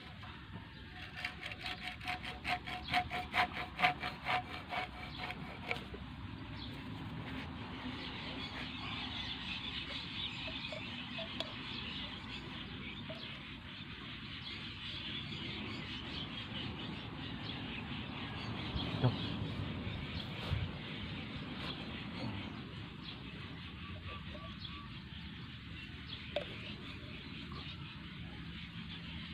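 Hacksaw cutting through a blue PVC water pipe, a quick run of back-and-forth strokes for about five seconds that stops about six seconds in. After that only a steady outdoor background remains.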